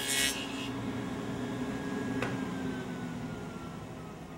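Table saw with a 3/4-inch stacked dado blade finishing a rabbet cut, the cutting noise ending within the first half-second as the board clears the blade. The blade then spins free with a steady hum; after a sharp click about two seconds in, its whine starts falling slowly in pitch as the saw coasts down.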